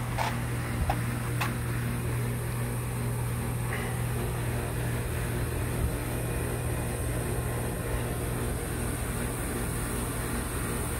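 A steady low machine hum holding one pitch, with a few faint clicks in the first second or two.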